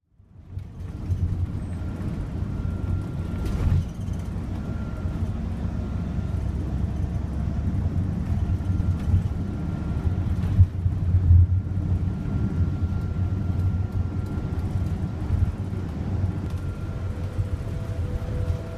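Steady low engine rumble of a moving vehicle, heard from on board, with small swells in level. Music comes in near the end.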